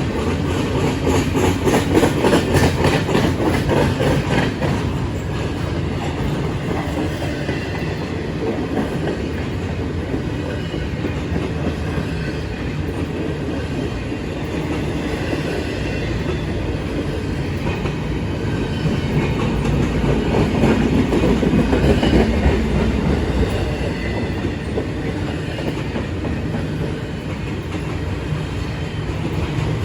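A train rolling past, its wheels clicking rapidly over rail joints in the first few seconds, with the sound swelling again about twenty seconds in.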